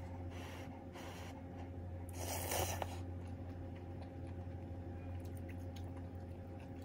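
Eating sounds from a bowl of ramyeon over a steady low hum: a loud slurp about two seconds in, with softer mouth sounds just before it and faint clicks of metal chopsticks and spoon against the bowl later on.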